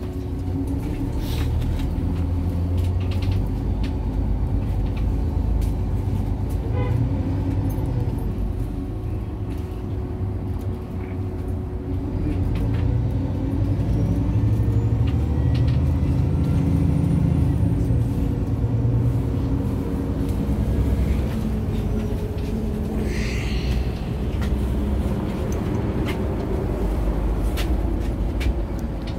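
Cabin sound of a MAN NG 313 Lion's City articulated city bus under way: a steady low rumble from the engine and running gear that swells and eases as the bus speeds up and slows, with scattered rattles. A short hiss of air about three-quarters of the way through.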